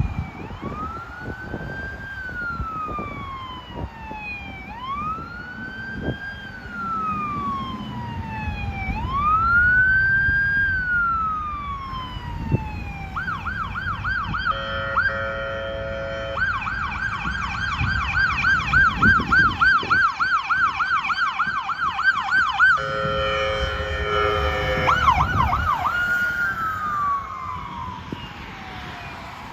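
Ambulance siren on a priority 1 emergency response: a slow rising-and-falling wail for the first dozen seconds, then a fast yelp, broken twice by long blasts of the ambulance's air horn, then back to the slow wail near the end.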